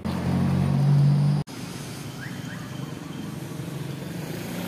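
Car engine and road hum heard from inside the car, a loud steady drone that cuts off abruptly about a second and a half in. It is followed by steady outdoor street and traffic noise with two faint short chirps.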